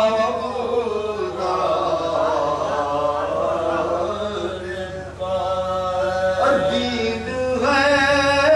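A man's voice chanting a salaam, an Urdu devotional poem, in long held melodic lines, with a short break about five seconds in before the chant resumes.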